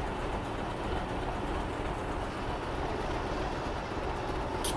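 Steady low rumble of a diesel locomotive on a railway turntable as the turntable is pushed round by hand. A short sharp click comes near the end.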